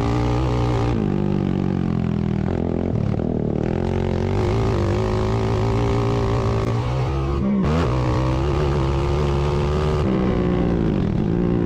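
ATV engines running at race speed, their pitch falling and rising again several times as the throttle is eased and opened.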